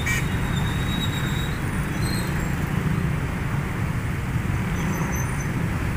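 Steady road-traffic noise from a crowd of motorcycles and cars, engines running as they move across the crossing.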